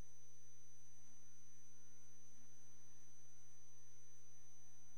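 Steady electrical buzz with a constant high whine above it, unchanging throughout.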